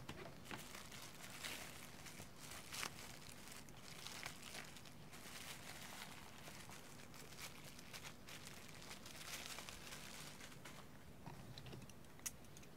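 Thin plastic bag and clear plastic wrap crinkling and rustling in irregular bursts as they are pulled off a cardboard box, dying down near the end. A single sharp click sounds just before the end.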